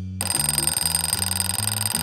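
Alarm-clock bell ringing rapidly, starting just after the beginning and lasting about two seconds, over background music with a steady bass line.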